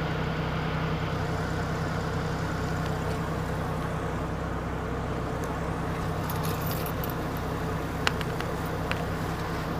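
Steady drone inside a 2000 Saturn SL2's cabin: the four-cylinder engine idling with the air conditioning blowing from the vents, the compressor clutch engaged and the system cooling after a clutch-coil repair. A few light clicks about eight and nine seconds in.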